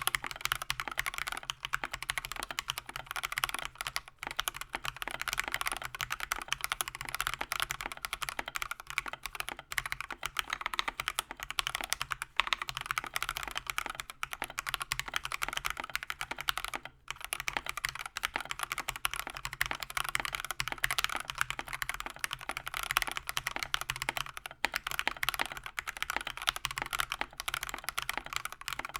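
Steady, fast typing on an Akko 3098B mechanical keyboard in stock form: a dense run of key clacks with only a few brief pauses.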